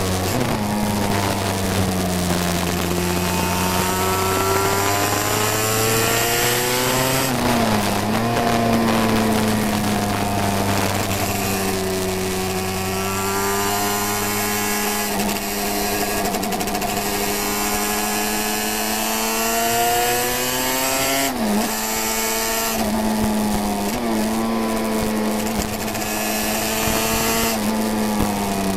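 Classic 350cc racing motorcycle engine running hard, heard from a camera mounted on the bike, its pitch holding high and drifting slowly, with brief dips about a quarter of the way in and twice in the second half. Wind rush and crackles from a damp microphone run through it.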